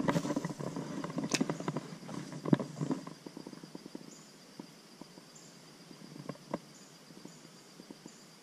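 Spinning rod and reel handled through a cast: rattling and clicks with a sharp click about a second in and a knock a little later, then quieter with scattered small ticks as the lure is retrieved.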